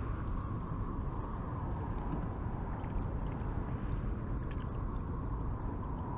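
Wind on the microphone, a steady low rumble, with water lapping and a few faint clicks.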